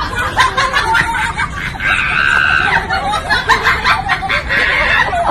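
Voices laughing and giggling, with a short high-pitched shriek held for under a second about two seconds in.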